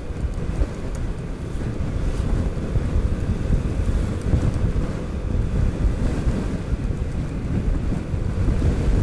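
Wind buffeting the microphone of a Yamaha NMAX scooter on the move, a loud, uneven low rumble, with the scooter's engine running steadily beneath it.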